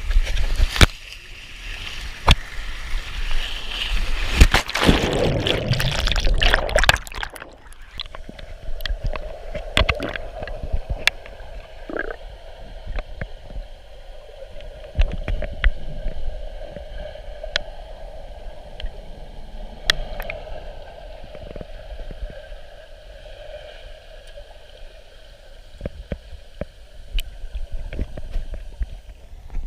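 Rushing, splashing water of a water-park slide ride, loud for about the first seven seconds and then dropping off suddenly, followed by quieter gurgling water with scattered knocks.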